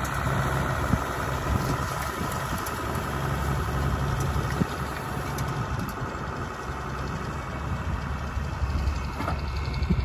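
Case International 956XL tractor's six-cylinder diesel engine running steadily as it tows a twin-rotor hay rake past at working speed.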